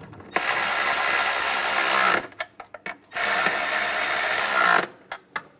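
Cordless electric ratchet running in two spells of about two seconds each, driving down the two nuts on an engine bracket, with a few short clicks between and after them.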